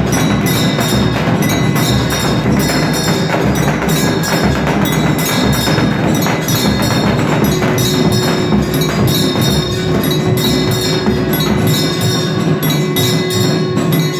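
Temple aarti percussion: a dhol beaten in a fast, steady rhythm, with metallic bells and cymbals ringing continuously over it.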